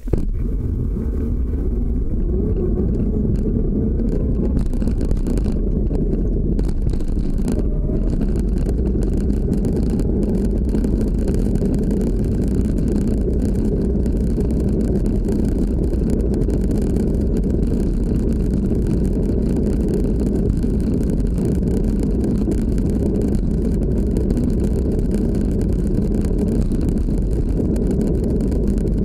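Evolve Carbon electric skateboard on large all-terrain tyres rolling over a paved path, heard from a camera on the deck: a steady low rumble of tyres and drive. A faint rising motor whine comes in during the first few seconds as the board pulls away.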